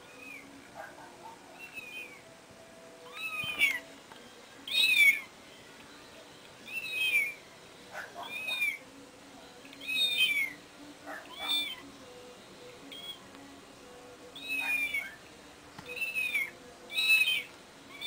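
Cat meows played through a mobile phone's small speaker, about nine short high-pitched calls that each fall in pitch, one every second or two. They are the calls that make the house cat take the phone for a cat trapped inside it.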